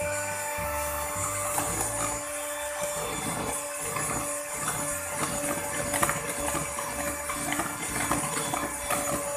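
Electric hand mixer running with a steady whine, its beaters whipping an egg-and-sugar batter.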